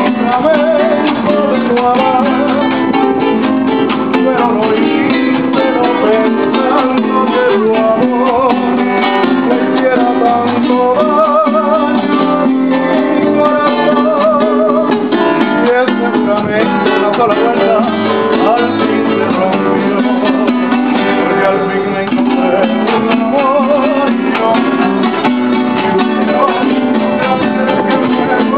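Two acoustic guitars and a Venezuelan cuatro playing a song together, plucked and strummed in a steady accompaniment, with a wavering melody line over it.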